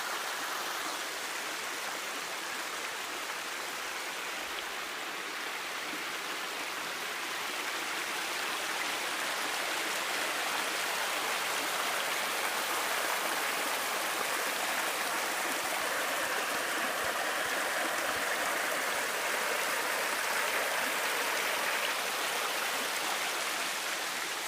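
Water rushing steadily over the rocky cascades of a small waterfall, a continuous even rush that grows slightly louder partway through.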